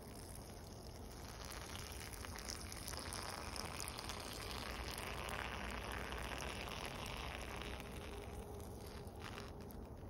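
A stream of urine spattering onto fallen leaves: a crackly, pattering hiss that builds over the first couple of seconds, holds, then tapers off near the end.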